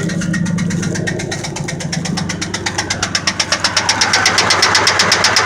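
1999 Ford F-150's 4.2 L V6 engine running with a rapid, even ticking of about seven a second, growing louder about halfway through: the small noise the owner is checking.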